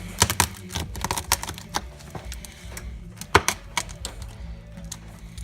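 Irregular hard clicks and clacks of lobster tail shells being handled and set down, the loudest knock about three and a half seconds in, over quiet background music.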